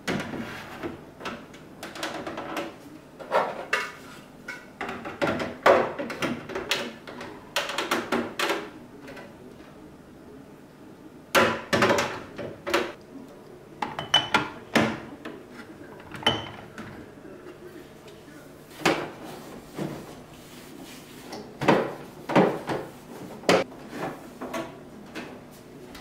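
Glass jars, bottles and plastic containers clinking and knocking as they are lifted out of a refrigerator's door shelves and set down on a table, with the fridge's plastic shelves and drawer rattling. The knocks come irregularly, in small clusters, with quieter handling noise between.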